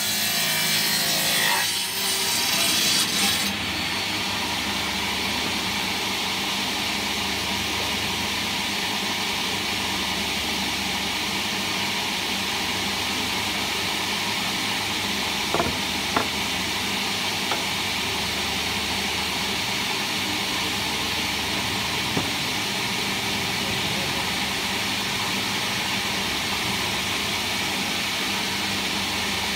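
Table saw's circular blade cutting through wood for the first few seconds, then running steadily without load. A few light knocks of wood being handled come around the middle.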